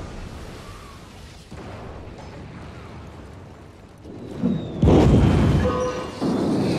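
Stop-motion film soundtrack of explosion-like booms: a low rumble dies away, then a small thump and a loud sudden blast come just before five seconds in, with a second burst just after six, and thin steady tones ring over the blasts.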